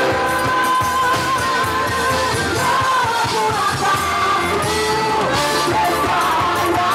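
A song playing, with a singer's voice holding long, wavering notes over a full band.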